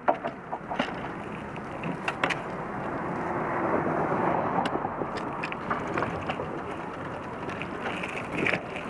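Bixi bike-share bicycle rolling along an asphalt street, heard from a camera mounted by its front wheel: steady tyre-and-road noise with frequent clicks and rattles from the bike, swelling a little around the middle.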